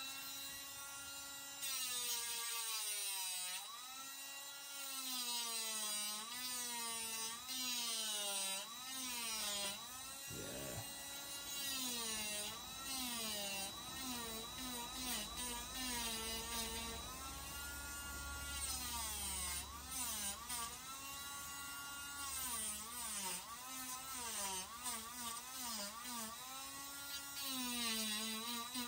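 Small cordless rotary tool running against the hem of denim jeans to fray and distress it, its high motor whine repeatedly dipping in pitch as the bit bites into the fabric and rising again as it is eased off.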